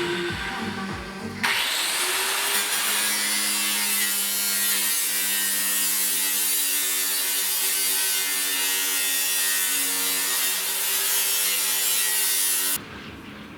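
A power tool running under load as it cuts, with a steady motor whine over a harsh grinding hiss. It starts abruptly about a second in and cuts off abruptly near the end.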